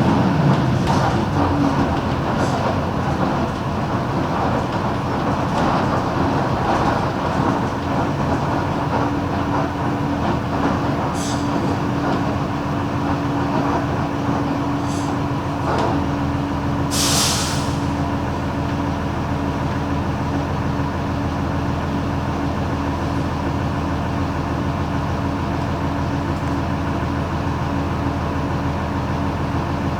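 Mercedes-Benz OM-366LA six-cylinder turbodiesel of a Busscar Urbanus S city bus running steadily. A short, sharp hiss of compressed air comes about seventeen seconds in, with two fainter hisses shortly before it.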